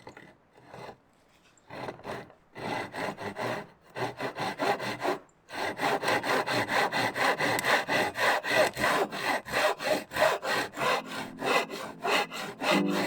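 Hand saw cutting through a wooden board: a few separate strokes at first, then steady back-and-forth sawing at about three strokes a second.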